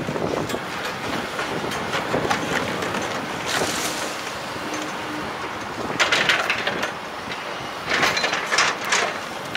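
Volvo tracked excavator running while its bucket tears into roof steel and masonry, with bursts of crashing and scraping debris about three and a half seconds in, at six seconds, and again around eight to nine seconds.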